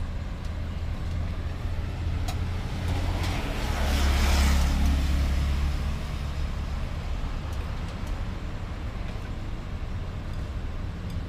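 Road traffic running steadily, with one vehicle passing close about four seconds in, its sound swelling and then fading away.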